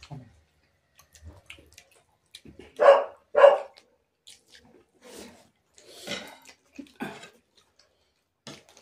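A dog barking twice, about half a second apart, a few seconds in, with fainter short eating sounds around it.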